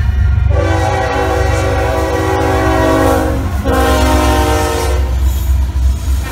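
Union Pacific freight train's lead diesel locomotive sounding its multi-note air horn at a grade crossing: a long blast, a brief break, then a shorter blast. Underneath it is the low, steady rumble of the diesel locomotives passing close by.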